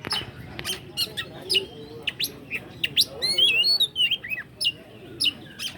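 Oriental magpie-robin (kacer) singing a fast, varied song of short sharp whistles, chirps and sliding notes, one after another with hardly a pause.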